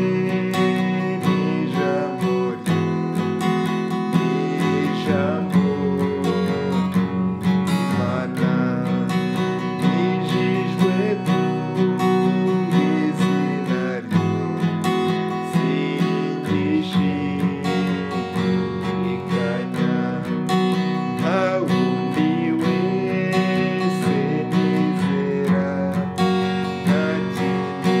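Acoustic guitar strummed in a steady rhythm through C, F and G chords, with a man singing a Kinyarwanda hymn along with it.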